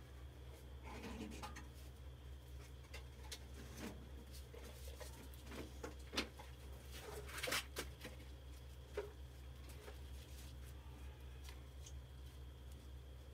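A trapped mouse scrabbling inside a plastic water-jug trap: scattered faint scratches and small clicks against the plastic, with a sharper tick about six seconds in and a louder rustling spell around seven and a half seconds. A steady low hum runs underneath.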